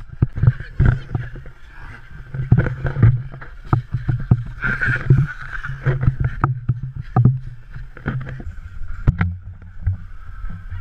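Irregular knocks and thumps of a running person's footsteps, with the body-worn action camera jolting at each stride, over a low rumble.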